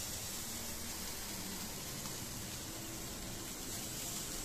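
Lamb rib rack sizzling on a hot grill grate: a steady, even hiss of fat and juices cooking.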